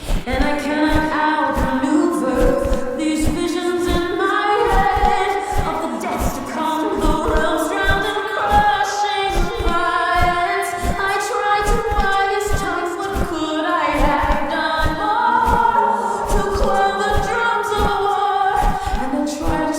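Music: a choir of layered voices singing without words over a steady drum beat.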